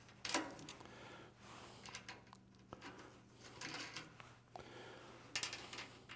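Faint clicks and scrapes of 3/8 flanged nylock nuts being handled and threaded by hand onto carriage bolts through a UHMW plastic side guide, with a few sharper ticks about a third of a second in and about five and a half seconds in.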